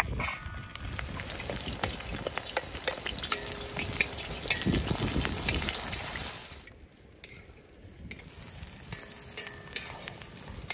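Diced raw lamb offal sizzling as it is tipped into a hot steel pan over a campfire, with a wooden spatula clicking and scraping against the pan as the pieces are stirred. The sizzle starts suddenly as the meat lands, drops away for a moment about two-thirds through, then comes back fainter.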